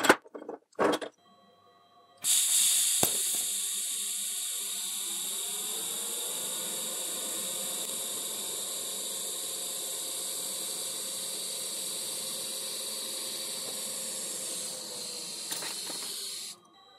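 Two sharp metal clunks as a mild-steel bending dog's pin is dropped into a steel bench. About two seconds in, a TIG welding arc strikes and runs as a steady hiss for about fourteen seconds, laying a tool-steel hardfacing bead on the dog's worn edge, then cuts off abruptly.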